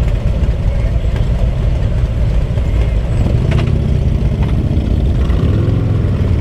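Motorcycle engines idling at a stop, including the rider's own Harley-Davidson trike and several bikes around it, as picked up by a microphone inside a helmet with the visor partly open. It is a steady low rumble that grows somewhat louder from about four seconds in.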